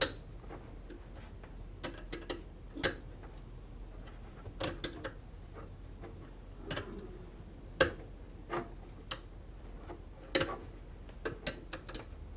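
Irregular sharp clicks and clinks of hand tools and metal plumbing fittings being handled, about a dozen, some in quick clusters.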